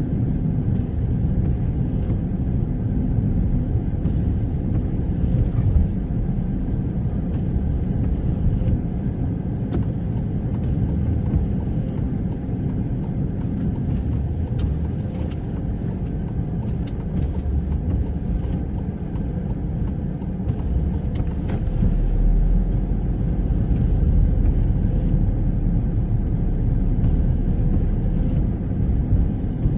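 Car driving on the road: a steady low rumble of engine and tyres, with a deeper hum coming in about two-thirds of the way through.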